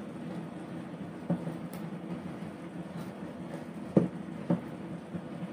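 Plastic spatula stirring leafy greens and sardines simmering in a frying pan, knocking against the pan a few times, loudest about four seconds in, over a steady low hum.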